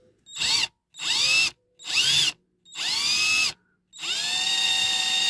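Electric drill drilling out the rivet holding a diecast model car together, run in five short bursts of a whine that rises in pitch as each starts, the later bursts longer.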